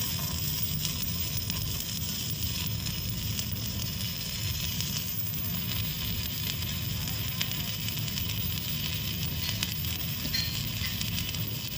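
Shielded metal arc (stick) welding with a 7018 electrode: the arc crackles and sizzles steadily, without a break.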